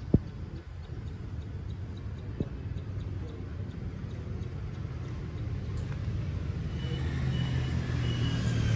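Steady low motor-vehicle rumble that grows louder over the last few seconds, with one sharp knock just after the start.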